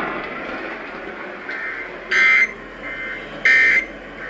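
NOAA Weather Radio end-of-message data bursts: short, loud, buzzy two-tone chirps repeating about every 1.3 s, two of them in this stretch, each with a fainter copy just before it. They follow a little faint radio hiss and signal that the warning broadcast has ended.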